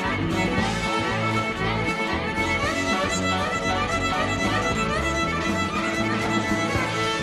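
Live rock band playing an instrumental passage: a fiddle plays quick runs of notes over electric guitar and bass guitar.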